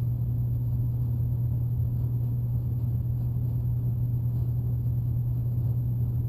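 A steady low machine hum with no change in level, over a faint steady high-pitched whine.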